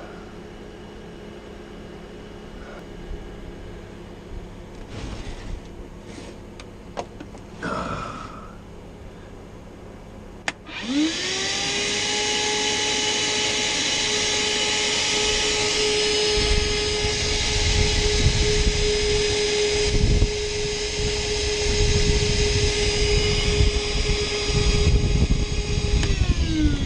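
A wet/dry shop vacuum switches on with a click about ten seconds in. Its motor whine climbs quickly to a steady high pitch, and an uneven low rumble joins as it sucks standing water out of the boat's cockpit well. The whine winds down near the end. Before it starts there are only faint knocks and handling sounds.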